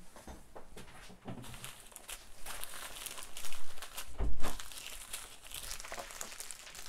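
Small plastic bags of beads crinkling and rustling as they are picked up and shuffled by hand, in irregular short rustles. The rustling is louder around the middle, with a dull bump just after four seconds.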